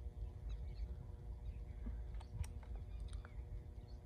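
Low wind rumble on the microphone, with a short cluster of faint sharp clicks a little over halfway through.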